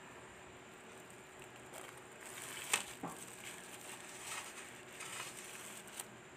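Plastic-wrapped metal llanera being set down on a perforated aluminium steamer rack: the plastic film crinkles and rustles, with a sharp metal clink a little under three seconds in and a lighter click near the end.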